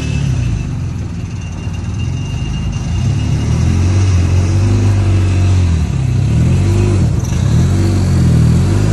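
Car engine revving up and falling back several times, its pitch rising and dropping again in repeated swells.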